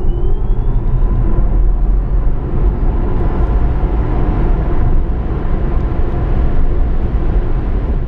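Loud intro sound effect: a dense rumbling rush of noise with a vehicle-like character, its rising whine levelling off about a second in.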